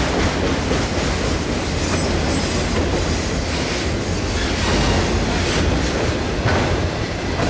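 Freight train of multilevel autorack cars rolling past close by: a steady, loud rumble and clatter of steel wheels on the rails.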